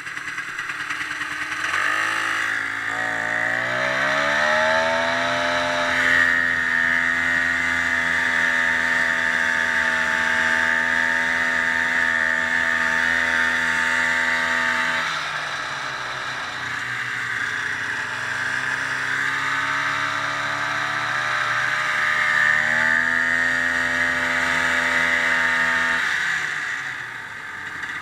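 Ski-Doo snowmobile engine running under way: it speeds up with rising pitch about two seconds in, holds a steady speed, eases off about halfway, then speeds up again and eases off near the end.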